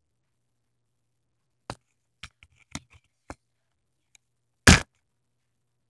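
Light clicks and taps of a small wooden crossbow being handled and loaded with a blunt bolt, then a single loud, sharp snap about three-quarters of the way in as the string is released and the bolt is shot.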